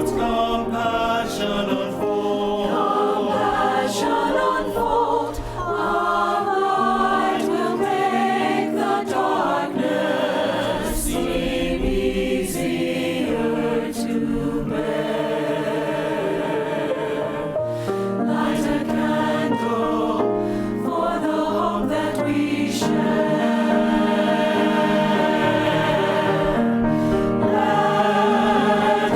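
A choir singing a holiday song with accompaniment.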